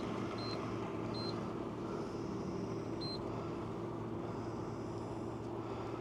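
Short high keypad beeps from a self-service fuel pump's card terminal as PIN digits are pressed: a few single beeps at uneven intervals, the last about three seconds in. A steady low hum sits underneath.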